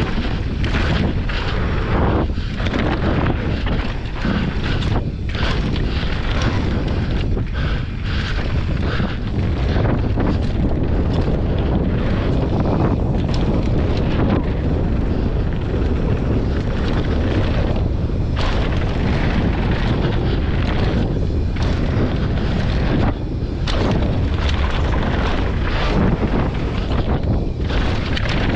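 Wind buffeting the bike-mounted microphone over the steady rumble of a Yeti SB165 mountain bike's knobby tyres rolling fast down a dry dirt trail, with frequent short clatters as the bike hits bumps and roots.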